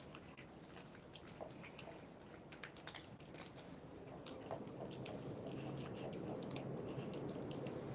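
Cats crunching dry kibble (karikari): quick, irregular crunches and clicks of chewing, over a low background hum that grows louder in the second half.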